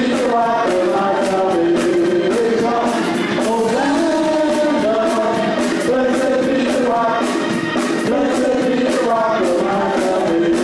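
Church worship song: singing voices over a band, with a steady drum beat.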